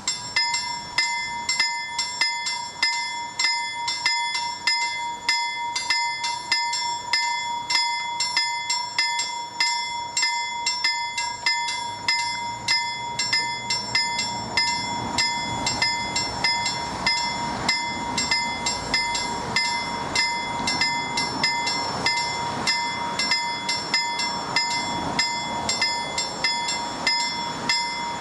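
Level-crossing warning bell ringing in a steady rhythm while the crossing is closed. A low rumble grows beneath it from about halfway, the approaching train.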